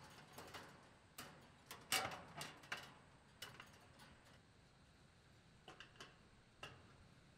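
Light metallic clicks and taps of a sheet-metal access cover being fitted onto an air conditioner condensing unit and secured with a screwdriver; faint, with a run of taps in the first three seconds and a few more around six seconds in.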